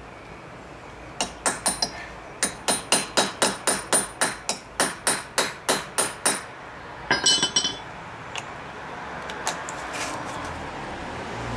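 Hammer driving a steel punch against the seized power-valve rack retaining screw on a Kawasaki KDX200SR cylinder, about twenty quick metallic strikes at four to five a second, to shock the stuck screw round. A brief rattle of metal clinks follows.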